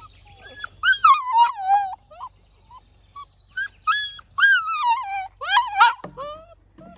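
Young puppies whining and yelping in high, wavering, sliding cries during rough play, in two bouts: about a second in, and again from about three and a half seconds.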